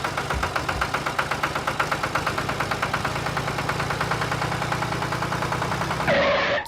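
Mini tractor running steadily with a fast, even chugging beat, ending in a short rush of noise near the end.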